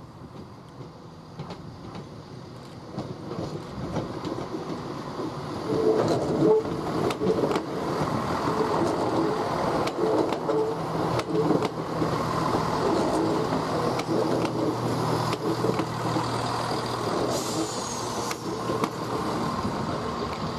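Passenger train moving close by, its rumble swelling about six seconds in and holding, with a steady hum and sharp wheel clicks over rail joints. A faint high whistle falls away near the end.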